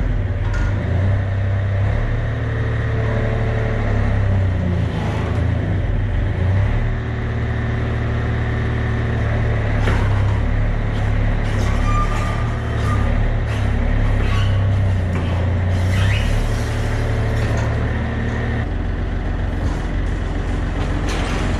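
An engine runs steadily with a low hum, overlaid by scattered clicks and metallic knocks, then stops abruptly at the very end.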